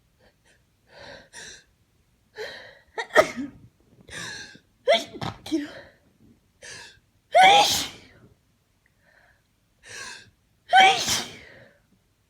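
A person's allergy sneezing fit: several quick gasping in-breaths, each followed by a loud sneeze, about five in all. The last two are the loudest, one past the middle and one near the end.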